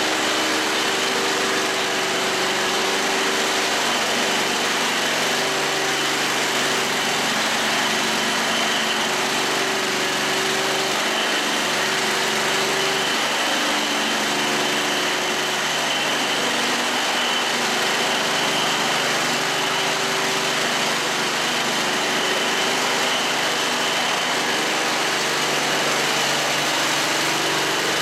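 Honda-engined EDCO walk-behind concrete floor grinder running steadily. Its small petrol engine drones under the even rasp of the grinding head on a concrete floor, with a faint steady whine on top.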